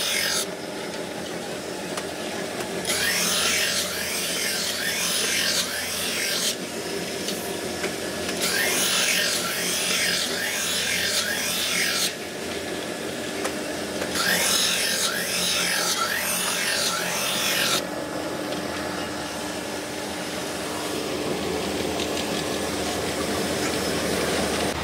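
Brake shoe linings ground against a rotating abrasive drum: a harsh rasping grind that comes in three passes of about three to four seconds each, with short gaps between, over the steady hum of the grinding machine. The last several seconds hold only the machine's hum.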